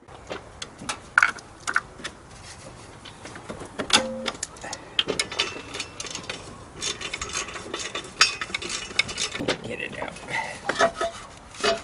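Hand wrench at work on the bolts of a Ford Focus cast-iron exhaust manifold: irregular metallic clicks, clinks and knocks as the tool is fitted and turned to free the manifold.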